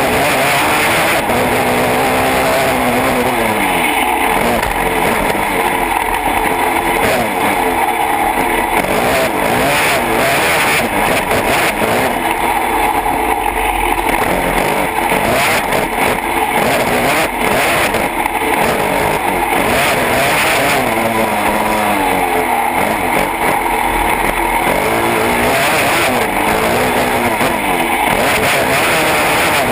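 Yamaha YFZ450R quad's single-cylinder four-stroke engine heard up close from the machine itself, revving up and falling off again and again as it accelerates, shifts and slows through the corners of a dirt track.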